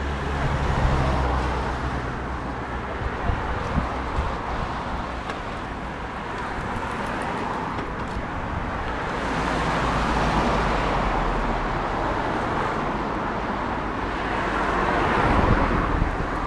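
Road traffic: cars passing on a nearby road, the noise swelling and fading as each goes by, loudest about ten seconds in and again near the end.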